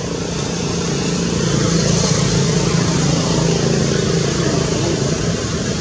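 A motor engine running steadily, getting a little louder about a second and a half in.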